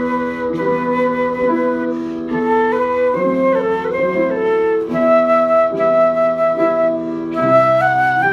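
Instrumental music from a wind ensemble with a flute-like sound, playing held chords under a melody that moves in steps; part of an arrangement of Italian songs.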